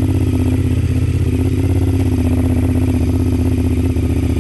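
Honda RC51's 90-degree V-twin engine running steadily with a low, even pulsing beat, dipping briefly near the end.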